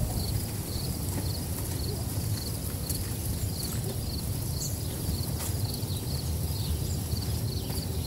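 Outdoor ambience while walking on a paved path: a low rumble of wind and handling on the microphone, light footsteps, and a faint high chirp repeating a couple of times a second in the background.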